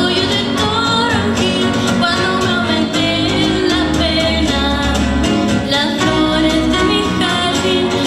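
A song with a singer's voice over guitar and a steady bass line.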